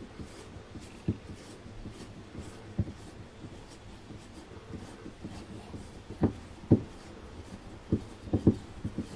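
Hand screwdriver turning out a long screw from the frame of a window-blind cassette: quiet scraping with a few sharp clicks, more of them over the last few seconds.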